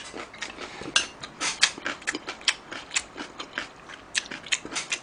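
Close-miked eating: irregular wet chewing and mouth clicks, several a second, with a spoon clinking and scraping in the pot of ramen.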